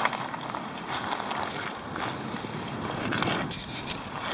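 Footsteps crunching on loose river-bank gravel and cobbles, an irregular run of scraping, grinding steps.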